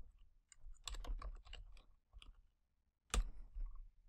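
Typing on a computer keyboard: a quick run of keystrokes, then a pause and one louder click about three seconds in.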